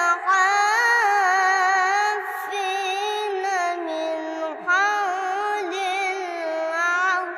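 A boy's voice reciting the Quran in a melodic chanted style, holding long, ornamented notes that waver and glide in pitch, with short breaths about two seconds and four and a half seconds in.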